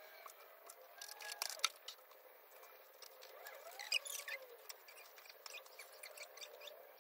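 Pen scratching and tapping on notebook paper, with a short burst of laptop keyboard clicks about four seconds in.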